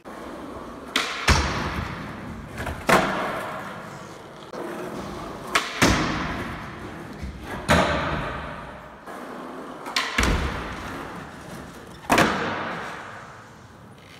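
Skateboard on a concrete floor: sharp clacks of the board popping and slapping down on nollie tricks, about every two to three seconds. Each clack is followed by the wheels rolling with a fading rumble.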